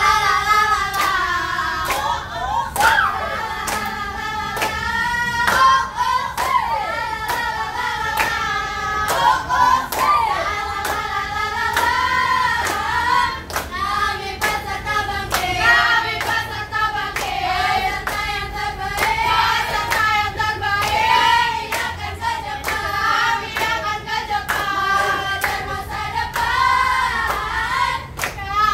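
A group of women singing a cheer song together, with steady rhythmic hand claps all through.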